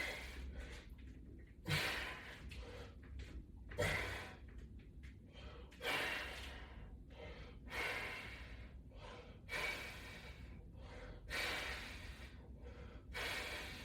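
A man breathing hard through resistance-band repetitions, a forceful exhale about every two seconds.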